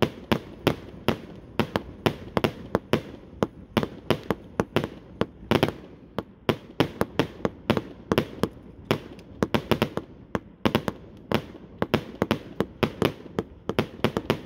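A 100-shot consumer fireworks cake firing: a fast, unbroken string of sharp bangs, about three or four a second, as its tubes launch shells that burst overhead.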